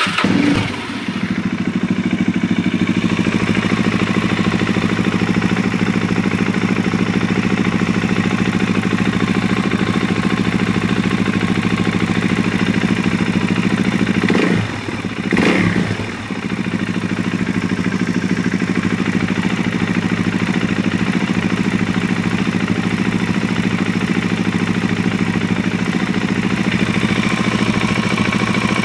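Suzuki DR-Z single-cylinder motorcycle engine idling with a tick that persists even with a manual cam chain tensioner installed. The engine is blipped twice about halfway through.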